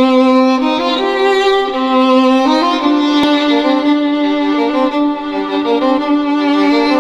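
Background music: a slow melody of long held notes over a sustained lower note, moving to new pitches every second or so.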